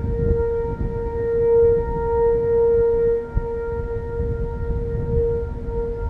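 465 Hz Whelen electronic sirens sounding a steady alert tone, slowly swelling and fading in loudness. Wind buffets the microphone underneath.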